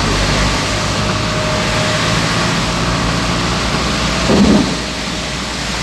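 Heavy rain falling on a moving car, heard inside the cabin as a steady hiss over the car's engine and road noise, with a brief louder swell about four and a half seconds in.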